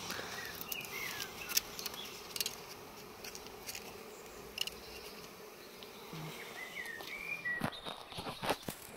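A mass of honeybees buzzing in a steady hum. Sharp clicks and scrapes of a knife working at the bee-covered comb, with several louder clicks close together near the end.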